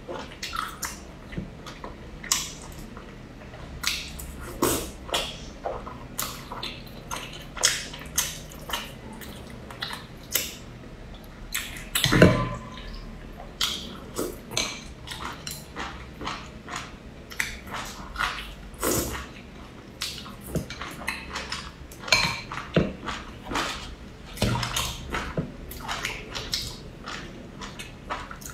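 Close-up eating sounds of spicy hot pot: wet chewing, slurping of kelp strands and soup, and chopsticks clicking against the bowls, as a run of irregular smacks and clicks. One louder, longer noise comes about twelve seconds in.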